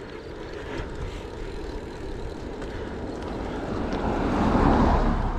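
Engine noise of a passing vehicle over a steady low rumble, swelling to its loudest about four and a half seconds in, then easing off.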